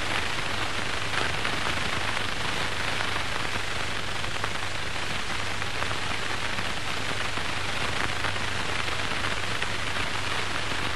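Steady hiss with a faint low hum, unchanged throughout: the background noise of an old film soundtrack, with no other sound.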